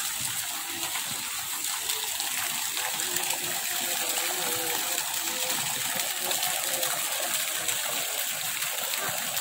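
Water jets from pond fountains arcing down and splashing steadily onto the pond's surface, a continuous rushing spatter.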